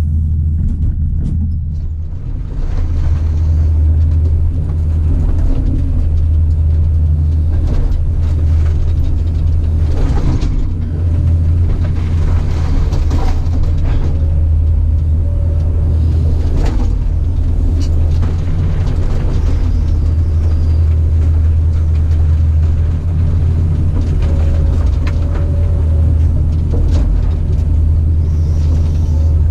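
Caterpillar 973C track loader's diesel engine running steadily under work, a loud low rumble that eases briefly about two seconds in. A few short knocks or scrapes come through around the middle.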